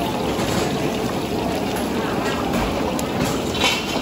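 Water boiling hard in a large wok: a steady bubbling hiss.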